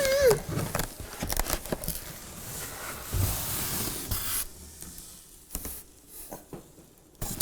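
Packaging being handled and unwrapped by hand: rustling and scraping for the first few seconds, then quieter handling with scattered clicks and one sharp click near the end.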